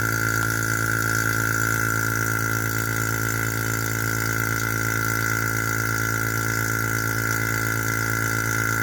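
Electric vacuum pump running with a steady, even hum, drawing a resin-filled vacuum chamber down to a deeper vacuum to pull the air out of a deer antler being stabilized.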